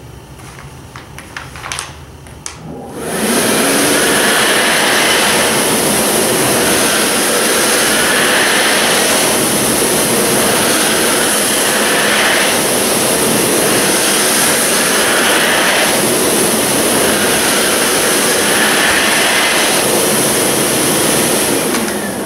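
Mitsubishi Jet Towel hand dryer: after a few light clicks, its blower starts about three seconds in, the motor rising in pitch. It then runs as a loud, steady rush of air that wavers as hands move through the slot. Near the end it shuts off and the motor winds down.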